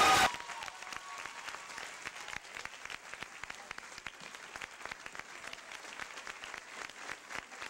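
Audience applauding in a hall, a steady patter of many hands clapping. A loud amplified voice cuts off abruptly just as it begins.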